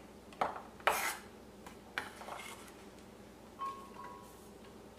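Steel kitchen knife clinking and scraping against a ceramic plate as chopped garlic is scraped off it, a few sharp clinks in the first two seconds with the loudest about a second in.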